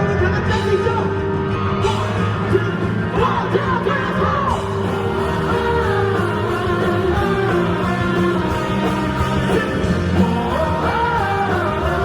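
Live pop-rock band performance with a male lead vocalist singing over the band.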